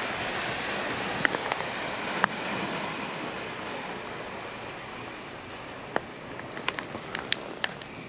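Sea surf washing, a steady rushing that slowly eases off, with a few sharp clicks scattered through it, more of them close together near the end.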